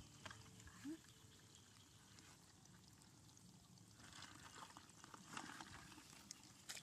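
Faint trickling and splashing of water, busier a little past the middle.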